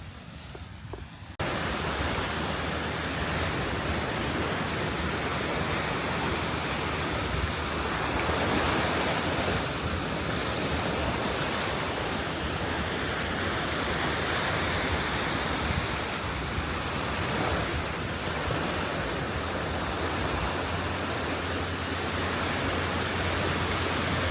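Sea surf washing on the shore, with wind buffeting the microphone: a dense, steady rush that cuts in abruptly about a second and a half in and swells a little near the middle.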